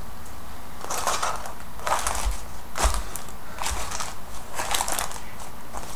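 Wet parchment paper being crumpled and shaken out by hand, a string of irregular crinkling rustles.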